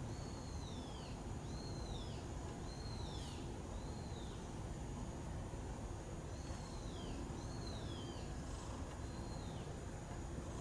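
A bird calling over and over from outside: short high notes that arch and then fall in pitch, about one a second, sometimes two close together, with a pause of a couple of seconds in the middle. A steady low background noise runs underneath.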